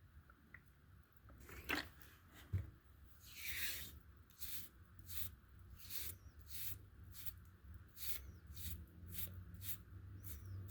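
Two sharp knocks, then a long scrape followed by regular short scraping strokes, about one and a half a second: a limestone block rubbed back and forth on a flat surface to flatten it.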